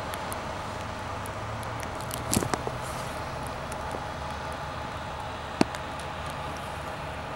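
Steady low hum of a running engine, with a short cluster of knocks just over two seconds in and one sharp click past five and a half seconds.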